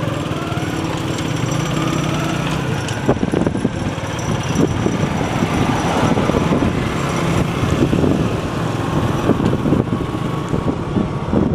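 Small motorcycle engine running steadily, then from about three seconds in the ride gets under way, with engine and road noise and wind buffeting the microphone.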